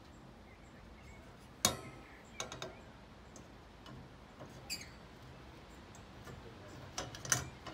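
Scattered light clinks and taps of a shade panel knocking against a chandelier's metal wire frame as it is slotted into place: a sharp one about a second and a half in, a few small ticks after it, and two more near the end.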